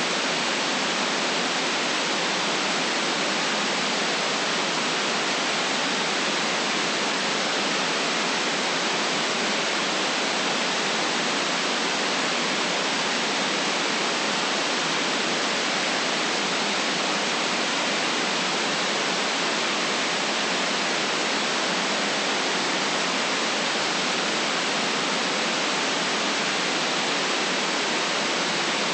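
Steady white noise: an even, unchanging hiss with no distinct sounds in it.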